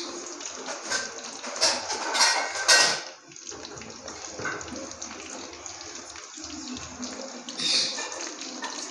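Hollowed-out bitter gourds (karela) deep-frying in oil in an aluminium wok on a very low flame: a steady sizzle and bubble. It flares louder for a spell about two seconds in and again near the end.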